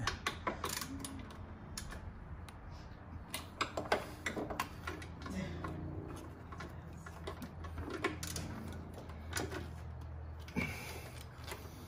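Scattered clicks, clinks and knocks of hand tools and metal parts being worked on a motorcycle's front suspension, over a low steady hum.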